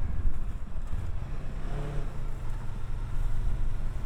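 Kawasaki Versys 650 parallel-twin engine running steadily under way, with road and wind noise over it. About halfway through, a short pitched sound rises and falls.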